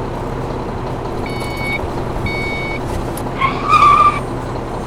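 Two electronic beeps from a reversing beeper on an RC construction vehicle, each about half a second long and a second apart, over a steady background of rumble and hiss. A short wavering higher tone follows about three and a half seconds in.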